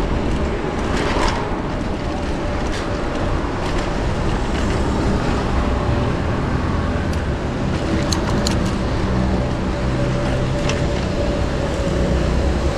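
City road traffic: motor vehicles running and passing in a steady rumble, with a faint steady hum throughout and a few light clicks.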